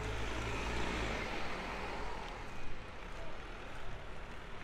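A low engine rumble with a rushing noise that swells about a second in and then fades, as a motorized vehicle passes, over a steady background of outdoor bustle.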